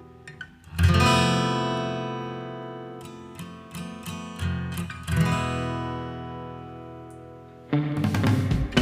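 Acoustic guitar music: strummed chords that ring out and fade, with single picked notes between, turning busier and louder near the end.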